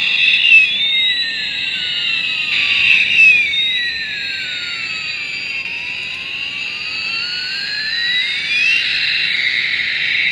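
Button-cell-powered toy fighter jet model playing its built-in electronic jet sound effect: a steady high jet hiss with whistling tones that sweep down in pitch and then back up over several seconds.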